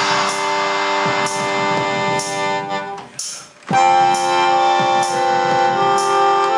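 Melodica played through its blow tube, holding reedy chords and melody notes over a drum-machine beat from an iPhone app. The music drops away for about half a second just past the middle, then starts again.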